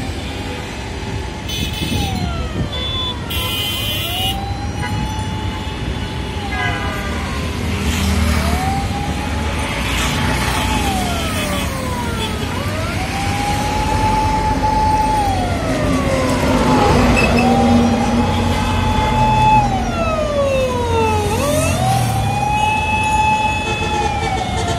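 An emergency vehicle's siren wailing: it rises, holds and falls in a slow cycle about every four seconds, over the steady noise of busy street traffic.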